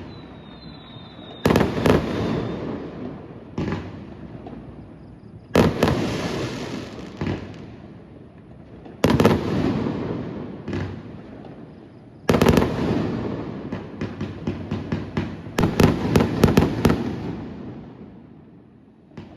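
Fireworks going off: sharp bangs every few seconds, each followed by a long rumbling echo that fades away. A rapid run of crackling pops comes in the second half.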